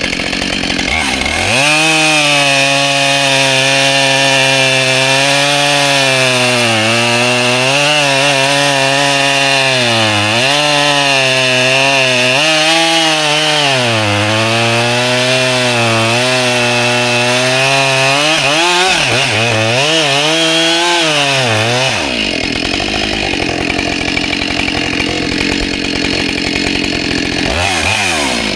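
Husqvarna 572 XP two-stroke chainsaw at full throttle cutting through a log, its pitch sagging and recovering again and again as the freshly hand-filed chain loads in the wood. About 22 seconds in it eases off, then revs up again near the end.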